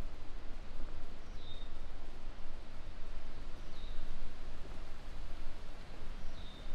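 Gusty wind buffeting the microphone with a steady low rumble. Over it, a bird gives three short, high calls, spaced about two and a half seconds apart.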